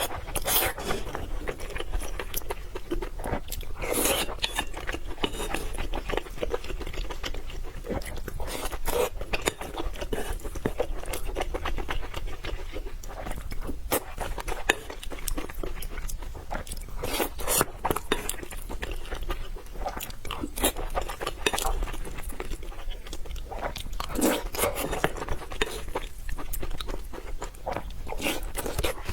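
A person eating close to the microphone: irregular crunching, biting and chewing with wet mouth clicks, continuing steadily.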